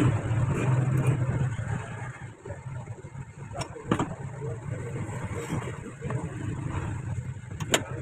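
A low motor rumble, strong for the first couple of seconds and then fading down. A key-cutting machine's clamp and handwheel give a few sharp metal clicks as it is set up, two of them close together in the middle and one near the end.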